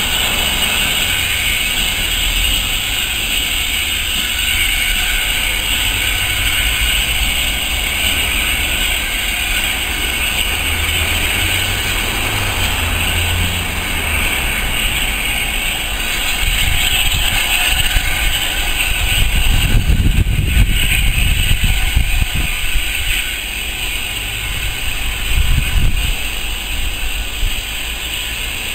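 Steam train running past, a steady rumble with a hiss over it; the low rumble grows louder about two-thirds of the way through, then eases.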